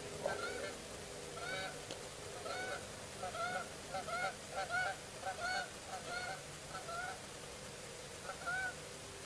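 Canada geese honking: a string of short, repeated honks that come thickest in the middle and thin out near the end.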